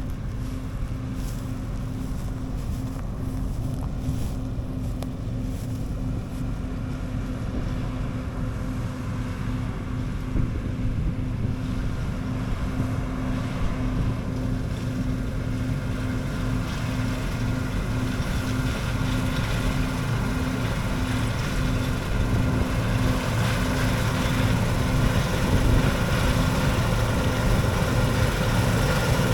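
Combine harvester running steadily at harvest, a constant engine and machinery hum with some wind noise, growing a little louder and brighter over the last third.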